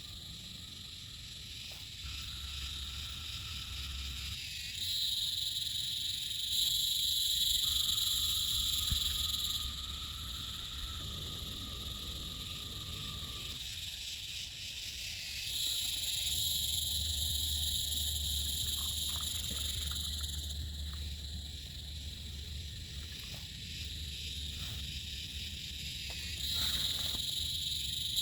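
Night insect chorus: a high, steady buzzing trill that swells louder and fades back in waves every several seconds.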